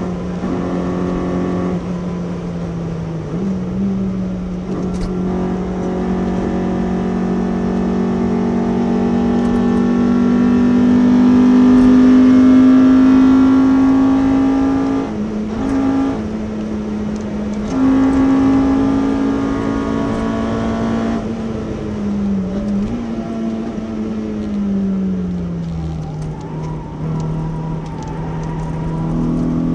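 Honda B18C 1.8-litre DOHC VTEC four-cylinder engine in a Civic, heard from inside the cabin while lapping a track. Revs climb in the first few seconds and hold high, loudest around the middle, with two short dips a little after halfway. Then the revs fall away and stay lower until they start to rise again at the very end.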